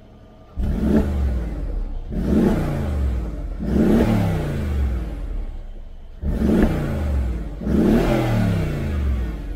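Mercedes-AMG G63's 5.5-litre twin-turbo V8 through a Fi Exhaust valvetronic catback, revved while stationary. After a quiet idle it takes five sharp throttle blips, each rising quickly and falling back toward idle.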